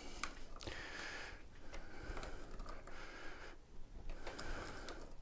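Faint clicks and light metal scraping as a bolt is worked with a hand tool into the worn, cross-threaded tiller adjustment threads, trying to re-cut them.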